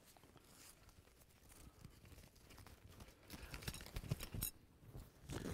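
Faint rustling and crinkling of packaging as a crochet bag kit is opened and its contents handled, a little louder from about three seconds in.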